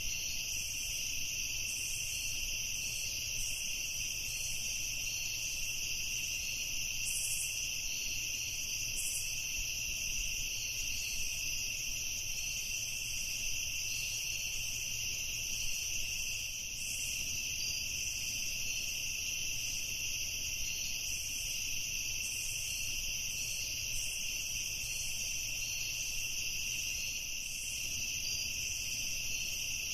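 Evening insect chorus: a steady, unbroken high-pitched trilling.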